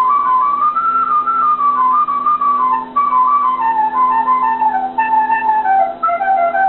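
Carnatic bamboo flute playing an alankaram exercise: a run of short stepwise notes climbing and then descending, with brief breath breaks about three and six seconds in. A steady low drone sounds underneath.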